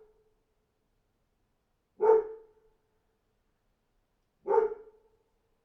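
A dog barking single barks, twice, about two and a half seconds apart, each bark trailing off in a short ringing tail.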